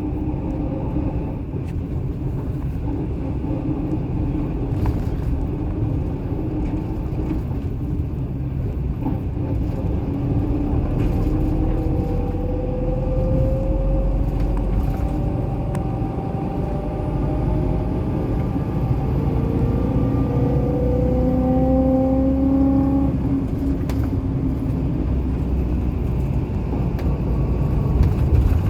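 A car driving, heard from the cabin: a steady low rumble of engine and road noise, with a whine rising in pitch twice as it picks up speed, about a third of the way in and again past the middle.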